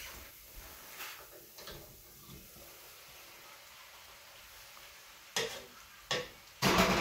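Spaghetti tipped from a metal colander into a pan on the stove and stirred with a wooden spoon, with a faint sizzle. Near the end come three sharp knocks of utensils against the pan, the last the loudest.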